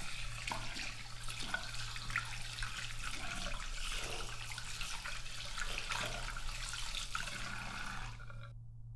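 Bathroom tap running into a washbasin, the stream splashing unevenly, then shut off abruptly near the end.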